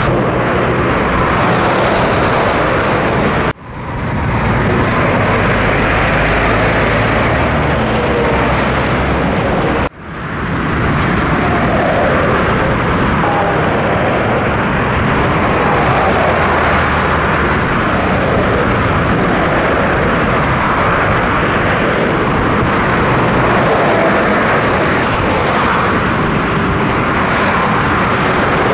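Steady motorway traffic noise from trucks and cars passing at speed: a constant rush of tyre and engine sound. The sound cuts out suddenly twice and fades back in.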